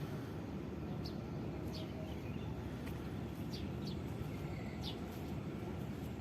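Small birds giving short, high chirps, about five of them spread out, over a steady low rumble of outdoor background noise.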